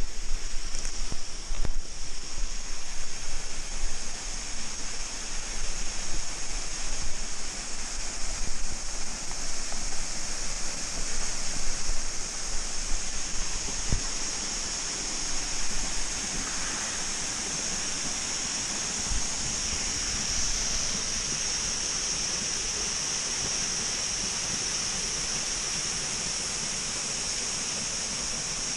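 Steady rush of a waterfall, with an uneven, gusty quality for the first half or so that settles into an even roar after about 14 seconds.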